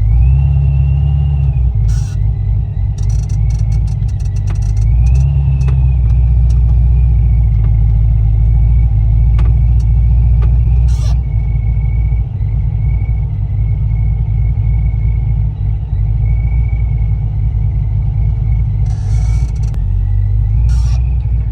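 A car being driven, with a steady low rumble of engine and road noise and a faint whine that rises and falls in pitch. There are a few brief clicks along the way.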